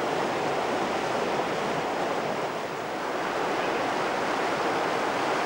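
River rapids: whitewater rushing over rocks in a steady, loud rush.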